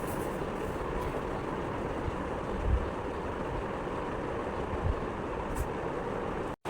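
Steady rumbling vehicle noise, like riding inside a vehicle, with a couple of low thumps; it cuts off abruptly near the end.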